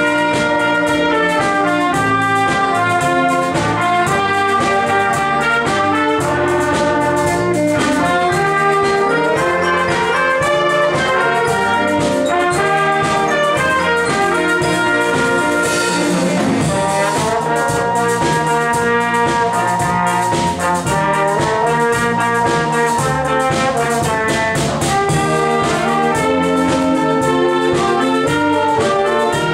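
Community wind band playing a pop tune together: trumpets, trombones, saxophones and flutes on a melody over a steady beat.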